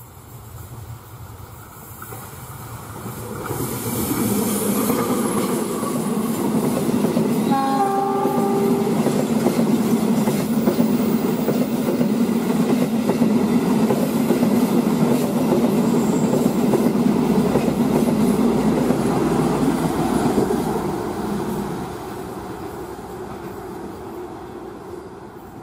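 Diesel-hauled passenger train approaching and passing at speed: the locomotive's engine grows louder, a short horn blast sounds about eight seconds in, then the coaches rumble and clatter along the rails before fading as the train moves away.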